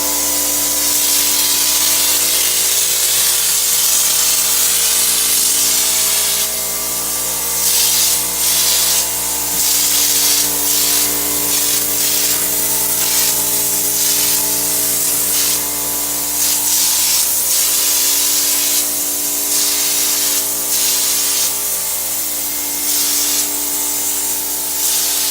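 Texture sprayer hissing as texture is sprayed onto the ceiling, at first in one long run, then from about a quarter of the way in as many short on-off bursts. A motor hums steadily underneath.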